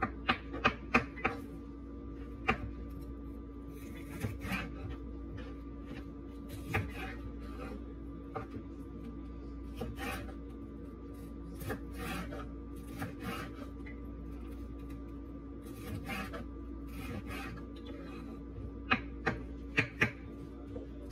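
Small knife slicing a green bell pepper on a wooden cutting board: the blade knocks on the board at irregular intervals, a quick run of cuts near the start and three close together near the end, with quieter slicing and rubbing between. A steady low hum runs underneath.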